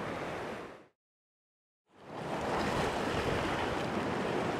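Sea surf and wind on the microphone, a steady rushing noise that fades out to complete silence for about a second, then fades back in.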